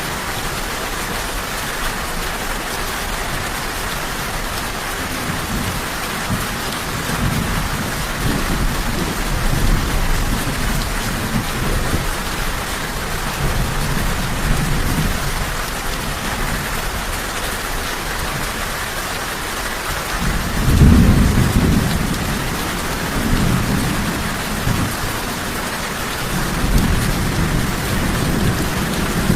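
Steady rain falling with thunder rumbling low several times, the loudest roll about two-thirds of the way through.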